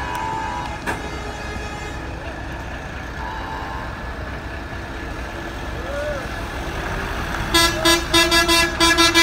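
Fire truck horns honking over the steady noise of passing heavy vehicles. The horns sound in a quick run of short, loud blasts starting a little before the end.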